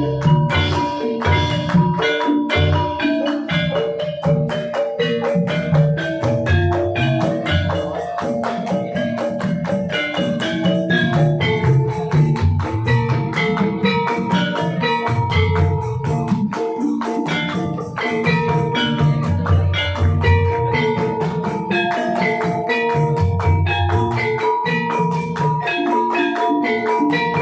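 Javanese gamelan ensemble playing a gendhing: a dense, steady stream of struck metallophone notes over frequent deep drum strokes.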